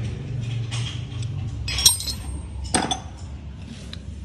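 Metal tools and parts clinking as a hex key tightens a bolt into a motorcycle rear-set footpeg bracket. Two sharp clinks, about a second apart near the middle, sound over a steady low hum.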